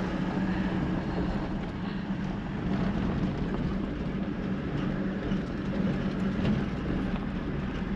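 Toyota 79 Series LandCruiser driving on a gravel road, heard from inside the cab: a steady engine drone with tyre and road rumble.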